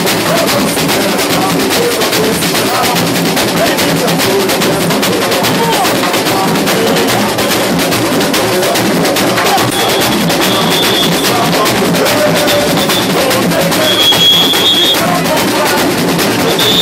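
Samba school bateria playing a loud, steady samba beat: surdo bass drums, snare drums and repiniques drumming together.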